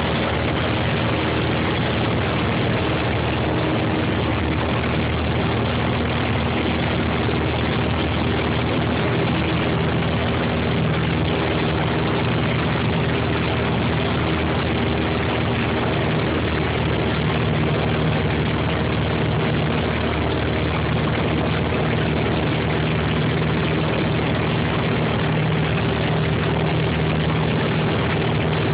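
Piper PA-28 single-engine light aircraft's piston engine and propeller running steadily in flight, heard inside the cabin: an unchanging drone of several low tones over a rush of air noise.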